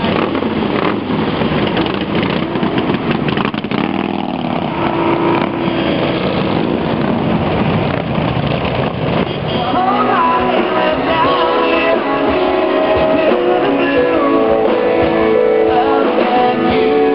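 A pack of cruiser motorcycles running and pulling away, a dense engine rumble. About ten seconds in it gives way to a live country band, with acoustic guitar, drums and a lead singer.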